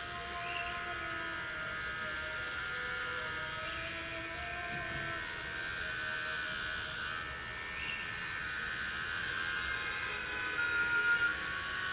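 Electric hair clippers buzzing steadily as they shear the hair off a man's head, heard through a television speaker.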